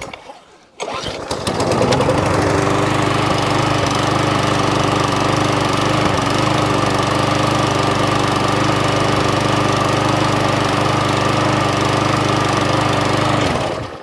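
Murray MP450 lawn mower's single-cylinder flathead Briggs & Stratton engine pull-started after priming, catching about a second in and running at a steady speed, then stopping near the end. It runs, needing only a service.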